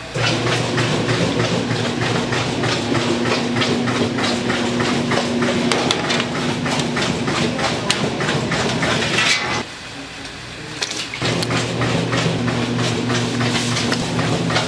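A motor-driven machine running with a steady hum and a rapid clatter. It cuts out about ten seconds in and starts again a second and a half later.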